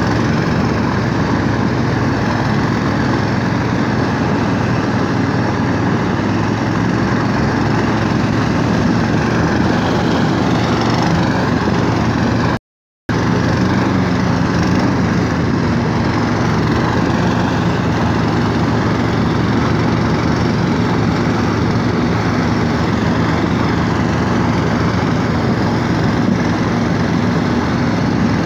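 DraXter motorized snow tug's small engine running steadily while pulling a sled through snow. The sound cuts out completely for a moment about halfway through.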